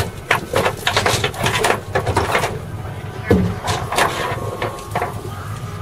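Irregular knocks and slaps on a fiberglass boat deck from a freshly gaffed cobia flopping about, over a low steady hum.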